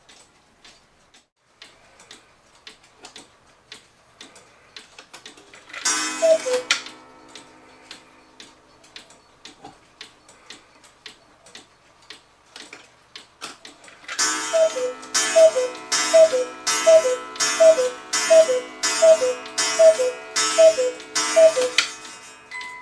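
Eight-day Oompah cuckoo clock running: the movement ticks steadily, the cuckoo's two-note falling call sounds once about six seconds in, then the bellows sound the cuckoo about ten times in a row from about two-thirds of the way through.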